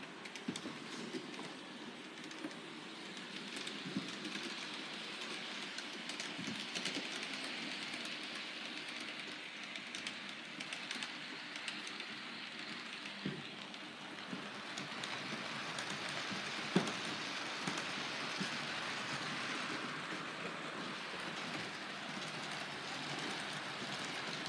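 Model trains running on a model railway layout: a steady whirring hiss of wheels and motors on the track with scattered small clicks, and one sharp click about 17 seconds in.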